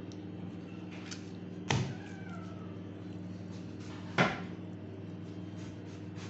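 Two sharp knocks, the first about a second and a half in and the second, louder, about four seconds in, over a steady low machine hum.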